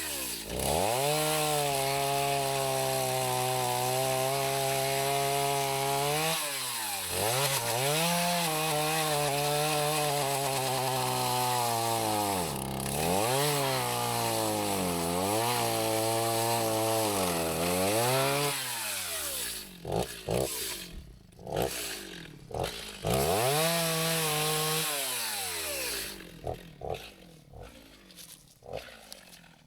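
Chainsaw bucking a dead white oak log, the engine held at high speed through long cuts and dropping and rising again every few seconds as the throttle is let off. After about 19 seconds it runs in shorter spurts with knocks in between, then stops about 26 seconds in, leaving a few faint knocks.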